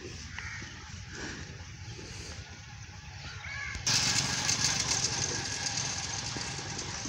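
Outdoor ambience: a steady low engine hum with a few short bird calls. About four seconds in, a louder hissing noise sets in suddenly and carries on.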